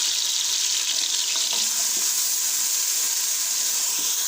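Garlic and onion paste frying in hot oil: a steady sizzle.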